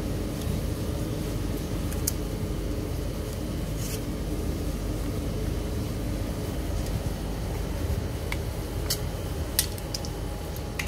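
Steady low mechanical hum, with a few sharp light clicks, the loudest near the end.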